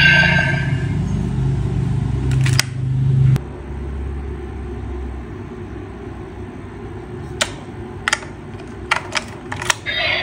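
The end of the DX Blazar Brace toy's electronic eject sound effect, which stops about three seconds in. After it come separate sharp plastic clicks as a stone is fitted into the brace, with several quick clicks close together near the end.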